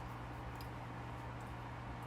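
Quiet room tone: a steady low hum under a faint even hiss, with a few faint ticks.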